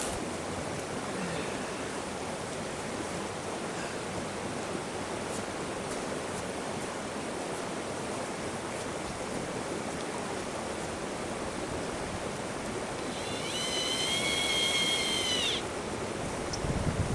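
Steady rushing wind noise, then about thirteen seconds in a cordless drill or power screwdriver whines for about two seconds, driving a screw back in.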